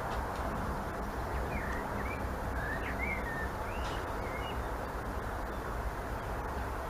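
Steady outdoor background noise, with a few short bird chirps in the first half.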